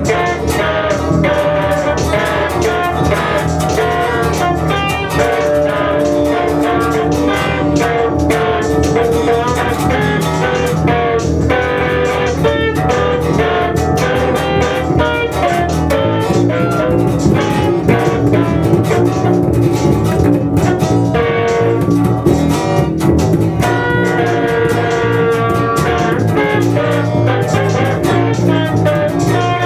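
Live band music led by guitar over bass and drums, steady and continuous, with a bluesy feel.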